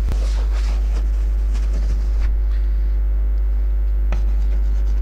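Steady low electrical mains hum, with a few faint taps and scrapes of chalk on a chalkboard.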